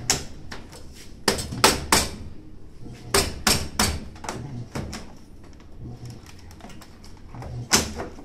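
Sharp knocks and clacks from handling the washing machine's parts during disassembly, some coming in quick runs of three.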